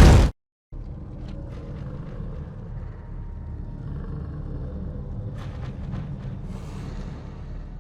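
A loud boom cuts off, and after a brief gap a low, steady rumble sound effect plays, with a few faint crackles past the middle.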